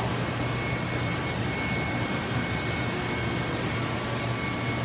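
Steady hum and hiss of refrigeration and live-fish tank machinery, with a faint constant high whine.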